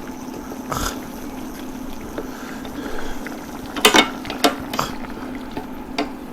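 Rice and water simmering in a pan over a steady low hum, with a few sharp clinks and scrapes of a utensil against the pan, the loudest about four seconds in.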